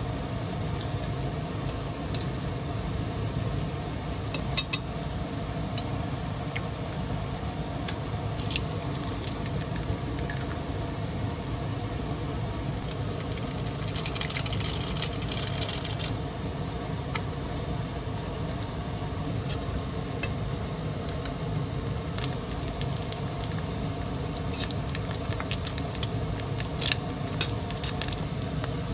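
Wooden chopsticks clicking and scraping against a nonstick pan as instant noodles are stirred, with a cluster of sharp taps about four and a half seconds in. Around fourteen seconds in comes a short rustling hiss as the seasoning powder is shaken out of its packet over the noodles, all over a steady low hum.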